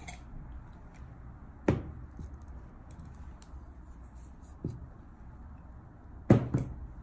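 Sharp plastic knocks and clicks from a Copic marker being handled at the desk: one a little under two seconds in, a softer one past the middle, and the loudest, a quick cluster of clicks, near the end.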